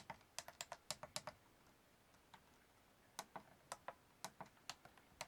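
Switches on a FrSky X-Lite radio-control transmitter being flicked repeatedly: quick, sharp clicks in a run, a pause of about two seconds, then another run of clicks.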